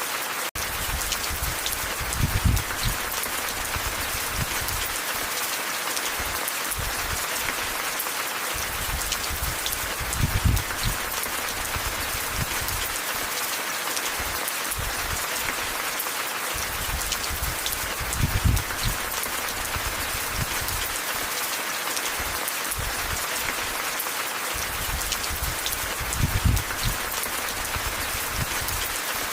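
Steady rain falling, an even hiss of drops. Low rumbling swells rise through it about every eight seconds.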